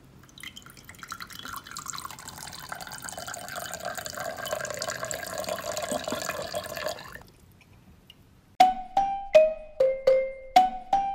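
Soda pouring from a homemade cardboard dispenser into a glass mug: a stream that grows louder, its pitch rising as the glass fills, stopping about seven seconds in. Near the end a melody of plucked notes begins.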